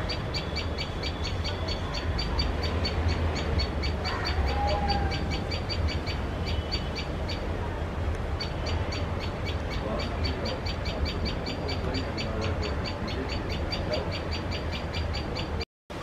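Rapid, even train of short high chirps, many a second, that stops for a couple of seconds about six seconds in and then resumes, over a steady low rumble.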